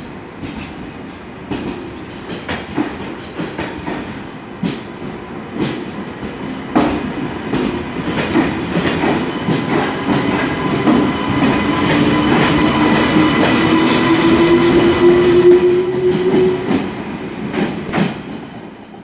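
TGV Euroduplex double-deck high-speed train running past along the platform, its wheels clicking over rail joints. A whine rises slowly in pitch as the train picks up speed, and the sound grows louder toward the middle before fading near the end.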